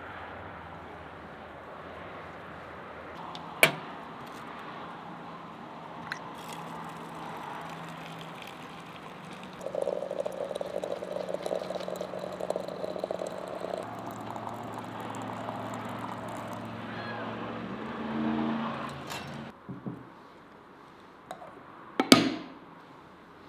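Quiet outdoor ambience, then from about ten seconds in a steady rushing, bubbling noise from a glass teapot of tea heated on top of a samovar. Near the end comes a sharp knock as the glass teapot is set down on a wooden table.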